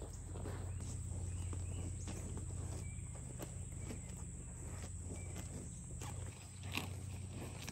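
Cattle grazing and moving in grass: a Jersey cow tearing and chewing grass and a calf's hooves stepping through it, heard as scattered short crunches and rustles over a steady low hum.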